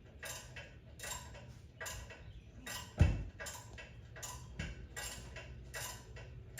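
Regular metallic clicking from hand tools at work on a big block Chevy engine, a little over one click a second, with one dull thump about three seconds in.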